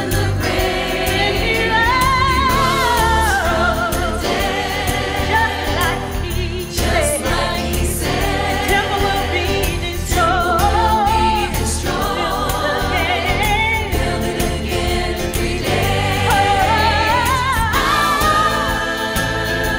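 Gospel choir and lead singer singing with keyboard and drum kit, the choir on lines like "Temple will be destroyed, build it again in three days", then chanting "Power! Power!" near the end.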